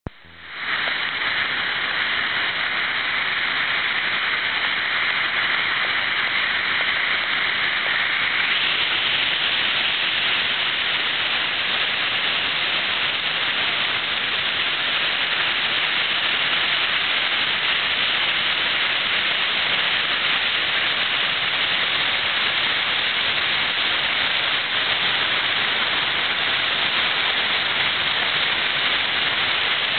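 Skógafoss waterfall, heard close up: the steady rushing of a large volume of falling water, unbroken throughout.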